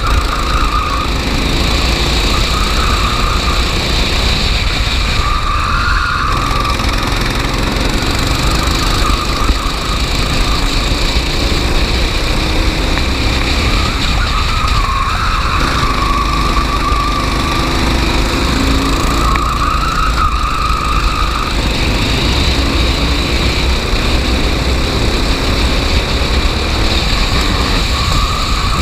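Racing kart engine running flat out on track, its pitch and loudness swelling and dropping again every few seconds as it accelerates and backs off through the corners, over a constant low rumble.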